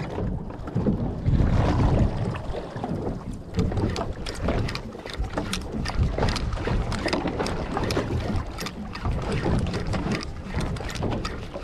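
Wind buffeting the microphone over the sound of water around a small fishing boat at sea, an unsteady low rush, with rapid light clicks joining in a few seconds in and running on.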